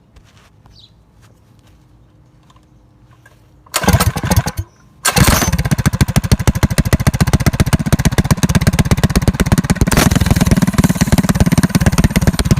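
Predator 212 non-hemi single-cylinder engine on a motorized bike, running with no muffler on the header. About four seconds in it fires and runs loudly for under a second, cuts out, then catches again about a second later and keeps running with a loud, rapid, even exhaust beat.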